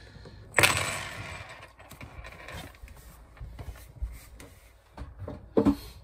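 Handling noise: a sudden clatter and rustle about half a second in that fades over a second or so, then scattered light clicks and knocks as small parts and tools are moved about.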